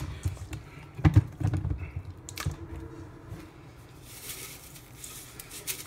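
Hands mixing chicken cutlets in a wet breadcrumb-and-sauce coating in a stainless steel bowl: irregular small clicks and knocks, with a couple of sharper knocks about a second in and again around two and a half seconds.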